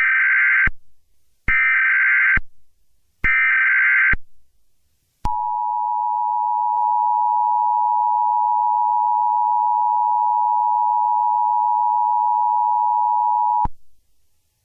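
US Emergency Alert System signal: three short digital data bursts of the SAME header about a second apart, followed by the long steady two-tone attention signal (853 and 960 Hz together), which runs about eight seconds and cuts off abruptly.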